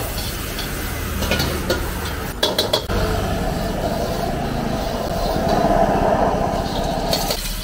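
Stir-frying in a steel wok over a gas burner: the burner's steady noise under the steel ladle scraping and clanking against the wok, with a quick run of sharp knocks about two and a half seconds in. A louder hiss swells in the middle and cuts off sharply near the end.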